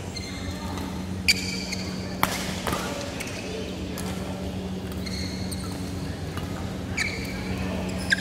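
Badminton rally: sharp racket-on-shuttlecock hits every second or two, with short high squeaks of shoes on the court mat, over a steady low hum.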